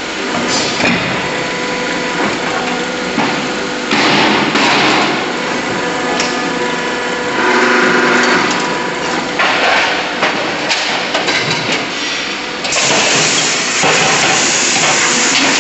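Die-casting machine running: a steady whine under loud hissing noise that surges several times, with scattered metallic clanks.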